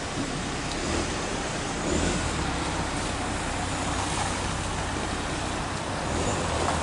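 Street traffic noise, with the low rumble of a car engine running close by that grows stronger about two seconds in.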